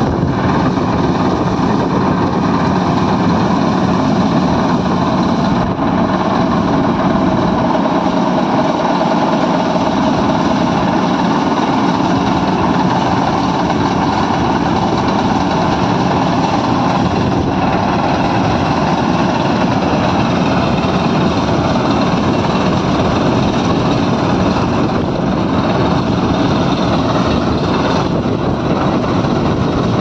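Simran combine harvester running while it cuts and threshes a standing crop. Its diesel engine, header and threshing machinery make a loud, steady mechanical din that holds level throughout.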